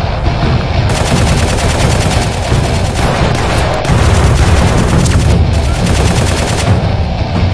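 Rapid automatic-gunfire sound effect: a long continuous burst of fast shots starting about a second in and stopping near the end, over steady background music.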